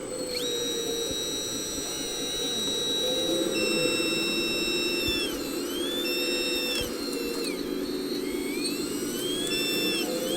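Radio-controlled model trucks and tractors running: a high whine from their electric drive motors and gearing rises and falls in pitch several times as they speed up and slow down, over a low steady hum.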